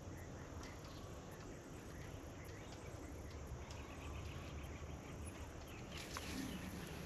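Faint outdoor farm ambience: a steady low rumble with scattered faint chirps, and a brief louder rustling with clicks about six seconds in.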